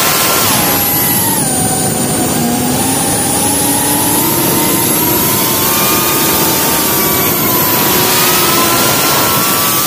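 Onboard audio of an FPV quadcopter's brushless motors and propellers whining over a steady rush of prop wash. The whine drops in pitch in the first second or two as the throttle eases off, then climbs slowly back up.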